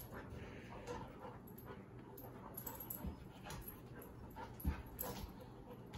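Two Labrador retrievers play-wrestling on a hard floor: soft panting and quiet mouthing and scuffling, with a single stronger thump about five seconds in.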